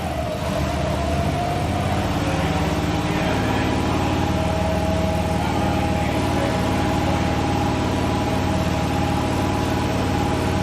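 Engine of construction equipment running steadily, a low rumble with a steady higher hum over it.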